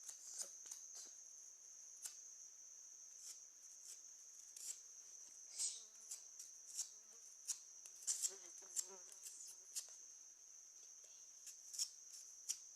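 Faint, irregular scraping strokes as a cuttlebone is scraped into powder, with a cluster of quicker strokes about two-thirds of the way through, over a steady high-pitched whine.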